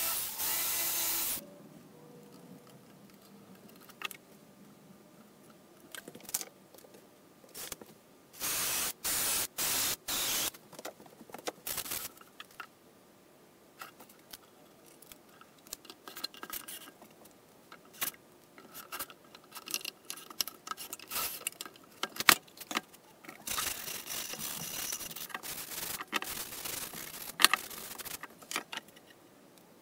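A jigsaw cutting through plywood stops about a second and a half in. It is followed by a few short loud bursts, then scattered knocks, scraping and rubbing of wooden and rubber parts being handled and fitted.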